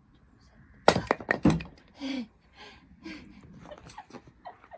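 Firewood being chopped: a cluster of sharp wooden knocks about a second in as the blade strikes and the log splits, followed by a few softer knocks and clatters of the wood.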